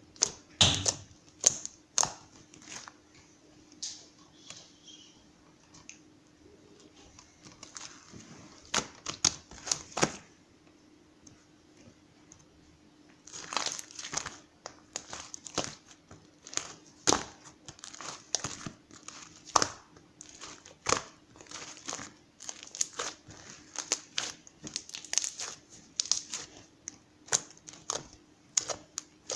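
Crinkling and rustling of something being handled, in many short irregular bursts, with a quieter stretch about a third of the way in.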